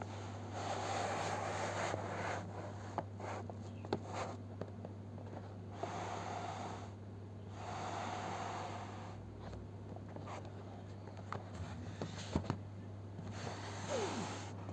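Cardboard box and packaging being handled: several rubbing, sliding noises of a second or two each, with scattered clicks and taps, over a steady low hum.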